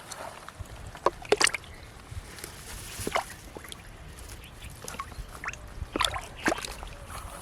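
Water splashing and sloshing in a shallow canal, in several short sharp splashes: a cluster about a second in, one near the middle, and two near the end.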